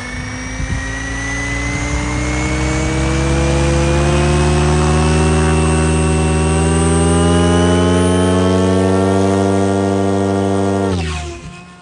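Goblin Raw 700 electric RC helicopter with its Xnova motor spinning up: a loud whine that climbs steadily in pitch for about ten seconds, then drops quickly and dies away near the end.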